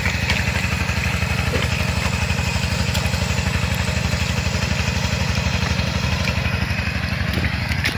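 A small engine running steadily at idle, with an even, rapid pulsing beat that does not change.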